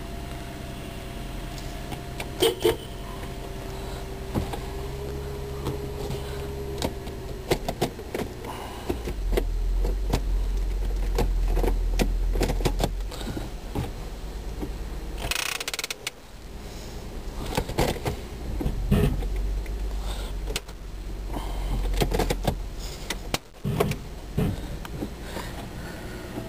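2003 Nissan Maxima's 3.5-litre V6 idling steadily, heard from inside the cabin, with scattered clicks and knocks from handling in the car.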